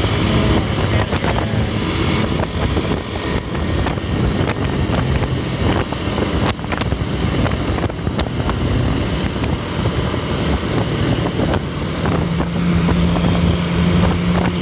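Engine and road noise of traffic moving at speed, heard from just behind a coach bus. About twelve seconds in, a steady low drone comes in.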